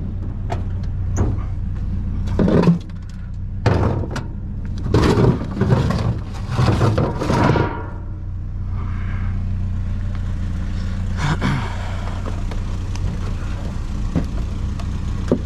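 A vehicle engine idles steadily. Over it come a run of clunks, scrapes and rattles as salvaged items are handled and moved, busiest from about two to eight seconds in.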